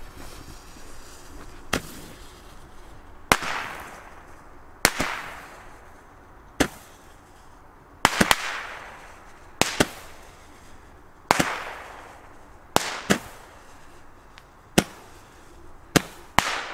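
Weco Roman candle firing its shots one after another: about ten sharp pops, roughly one every one and a half seconds, each followed by a fading hiss. A few come as quick double pops.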